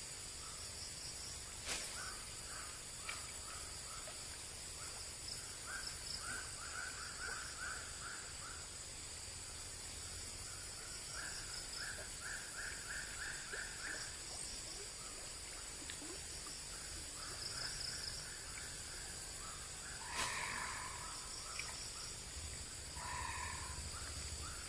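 Outdoor animal chorus: a steady high insect drone, with runs of evenly pulsed animal calls at about three a second, and louder calls about twenty seconds in. These are the strange sounds that the angler takes as a sign that the pond is haunted.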